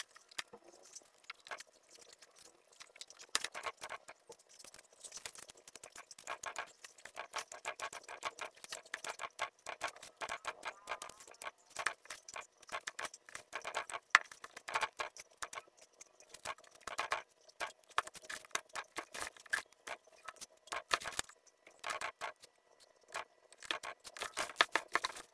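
Monitor lizard chewing and tearing raw chicken: an irregular run of wet crunches and clicks, sparse for the first few seconds, then dense.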